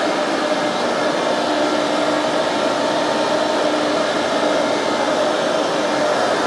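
Tool and cutter grinder running steadily, its motor and grinding wheel giving an even whir with a steady hum.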